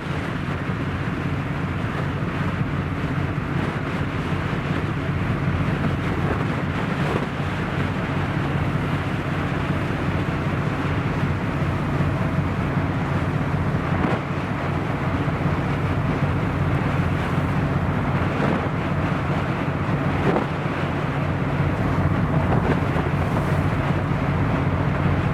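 Steady low drone of a ship's engine, with wind noise on the microphone and water rushing. It stays even, with no change in engine speed.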